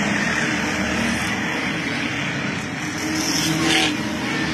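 Stock cars racing past on a paved oval, several engines running hard together. The sound swells as a car goes by close about three and a half seconds in.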